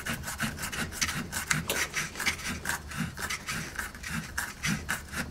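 Plastic rotor nut being wound by hand onto the shaft of a Fisher & Paykel Smart Drive washing-machine motor: plastic rubbing and scraping in a steady run of short clicks, about three a second, as the nut is tightened.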